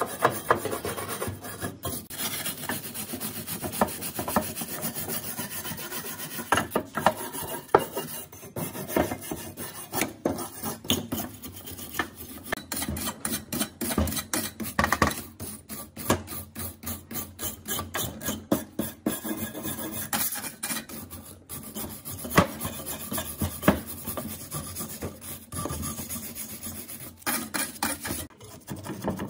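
Hand tool rasping and rubbing against a part of an old, rusty meat mincer in quick, uneven strokes, as the rust is worked off.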